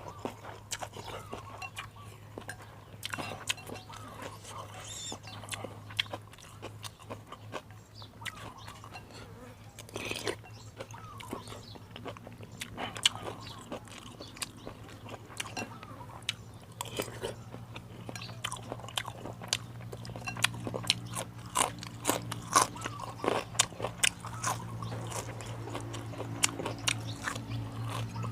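A person eating beef noodle soup: chewing and crunchy bites with many small sharp clicks, busier in the second half, over a steady low hum.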